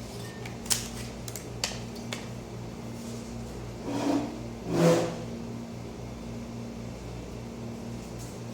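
Steady hum of a small motor or fan, with a low pulsing beat, broken by a few sharp clicks about a second in and a brief louder sound between four and five seconds in.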